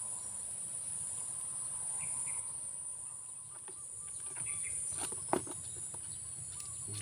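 Steady high-pitched drone of an insect chorus, with a few faint short bird chirps and one sharp click about five seconds in.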